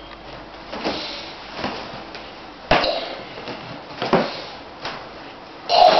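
Dull knocks and thumps from a heavy wooden tree-trunk section being lifted and handled, about six in all at uneven intervals. The sharpest knock comes a little before halfway and the loudest thump just before the end.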